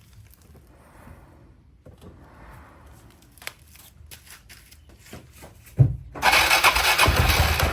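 Suzuki Burgman AN400 scooter's single-cylinder four-stroke engine starting and running steadily about six seconds in, just after a short thump, following several seconds of faint clicks.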